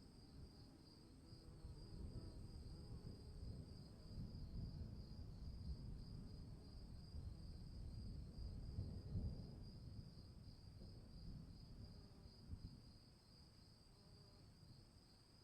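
Distant thunder rumbling low, swelling to its loudest about nine seconds in and then dying away, over a steady pulsing trill of crickets.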